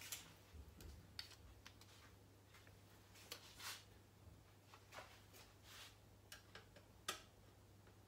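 Near silence: faint, scattered clicks and brief rustles of someone moving about and handling a screwdriver and computer parts, over a low steady hum.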